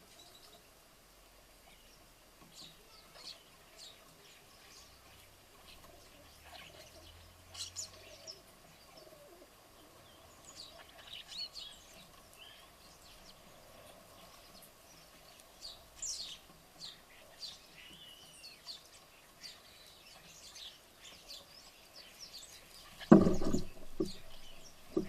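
House sparrows and common starlings chirping at the bird table in short, scattered calls. Near the end comes a loud, close flutter of wings.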